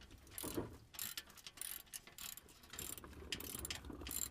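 Hand socket ratchet clicking in repeated short bursts as it works the bolts of a car's undertray access door.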